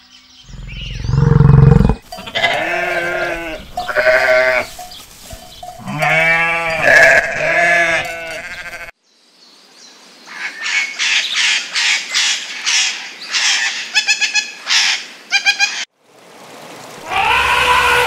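A sequence of animal calls. About a second in, a deep, short grunt from an African buffalo. Then a string of bleats for several seconds. Then a long run of rose-ringed parakeet squawks with quick rattling chatters, and near the end another pitched call over running water.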